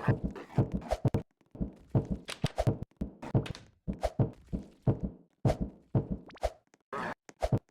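An irregular series of knocks and thumps, a few a second, separated by short silences.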